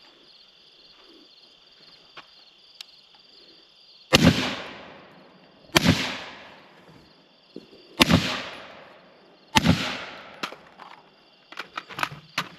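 Four gunshots from a rifle or handgun, fired one at a time about one and a half to two seconds apart starting about four seconds in, each ringing out with a long echoing tail.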